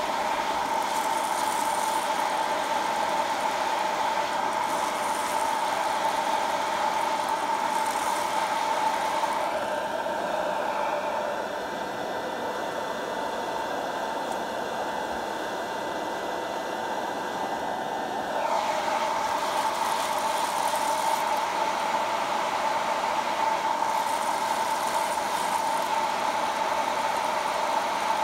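Hot-air coffee roaster's blower fan and heater running steadily with a whine, roasting green coffee beans. For several seconds in the middle the sound turns slightly quieter and duller, then comes back as before.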